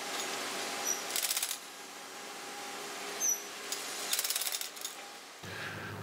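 Hand-held power wrench working the screw fastenings of rail clips on concrete sleepers, rattling in two short bursts about three seconds apart.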